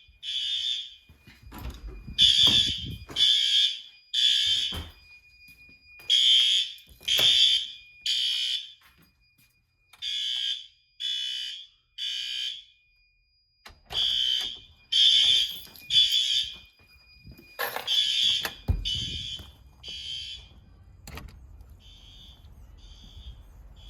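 System Sensor P2RL fire alarm horn strobes sounding at high volume in the temporal-3 evacuation pattern: three short blasts, a pause, then again, over and over. The blasts get fainter near the end.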